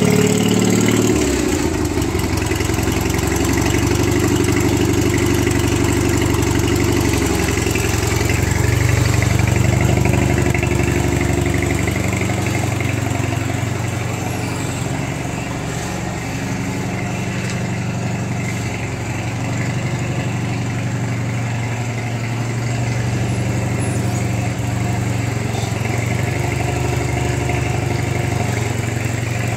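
An HT20 garden tractor's engine runs without stopping on its first cold start after long storage, its pitch and loudness shifting now and then as the tractor is driven about.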